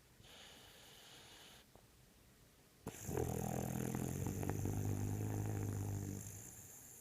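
Boxer dog snoring in his sleep: a faint breath, then about three seconds in a loud, low, rattling snore that lasts about three seconds and fades away.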